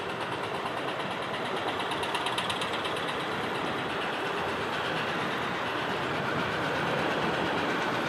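Eastern spot-billed duck dabbling, its bill working rapidly at the water surface as it feeds: a steady run of rapid fine clicks over the rush of river water.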